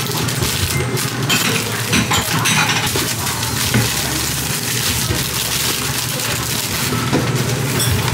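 White paper bakery bags and a folding cardboard bakery box being handled and closed: paper rustling with many short crackles and light knocks on the counter.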